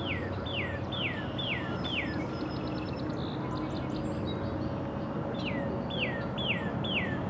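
A songbird singing two phrases of about five quick whistled notes each, every note sliding down in pitch, with a pause of a few seconds between the phrases. A steady low rumble of background noise runs underneath.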